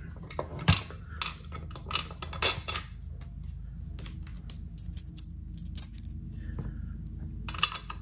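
Small steel hardware clinking and tapping: a bolt and washer being worked through a winch's mounting plate into a steel hitch mount. Irregular sharp clicks come in clusters, with a run of quick light ticks about five to six seconds in.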